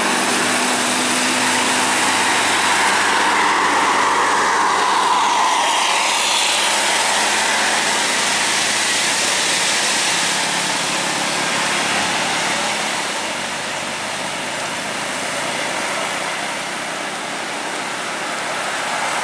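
Coach bus engine pulling up a steep hairpin climb, with the hiss of tyres on a wet road.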